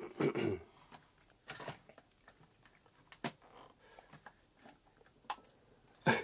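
Sparse handling noises of wood on a workbench: a louder knock and rub at the start, then a few light taps and clicks, as a hand settles a wooden kanna body and its paring jig, held by a one-handed bar clamp.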